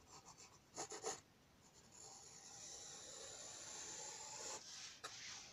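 Graphite pencil scratching on paper: two short strokes about a second in, then one long, steady stroke of about two and a half seconds, drawing a line.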